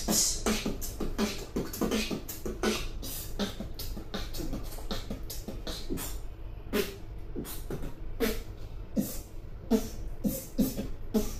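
A beatboxer performing: a quick, unbroken rhythm of vocal kick-drum thumps and sharp snare and hi-hat clicks made with the mouth.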